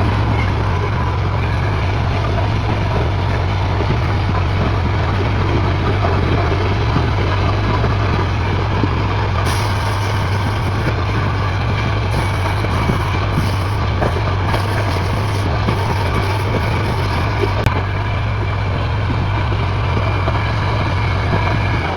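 A machine running steadily, with a strong low hum under a broad rushing noise that barely changes.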